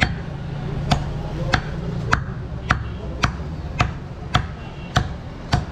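Butcher's cleaver chopping goat meat on a wooden log block: about ten sharp, evenly spaced strokes, a little under two a second.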